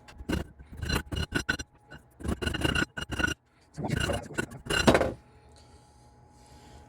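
Metal scraping and clinking as thin annealed copper is worked tight around the steel shank of a needle file to form a hinge tube. Three bursts of quick rasping strokes, with a faint metallic ring.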